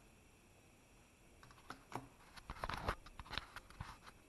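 Near silence, then from about a second and a half in a quiet run of small clicks and taps of uneven spacing as things are handled close to the microphone.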